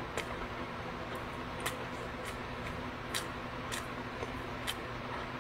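Quiet eating sounds: a person chewing, with scattered small sharp clicks every half second or so over a steady low hum.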